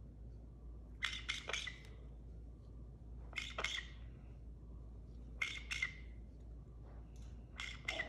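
A lightly sedated Nanday conure squawking in four short, harsh bursts about two seconds apart.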